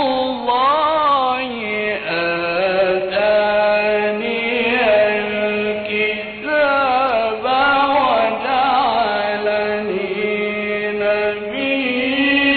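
A solo male voice chanting Arabic religious text, with long held notes and ornamented runs that glide up and down, phrases separated by short breaths.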